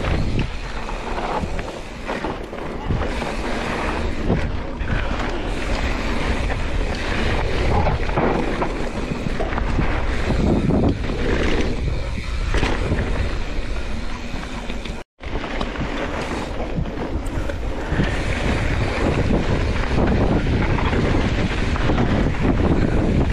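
Wind buffeting the microphone of a camera on a mountain bike riding a dirt flow trail, mixed with tyre roar and short jolts of the bike over rough ground. The sound drops out completely for a split second about fifteen seconds in.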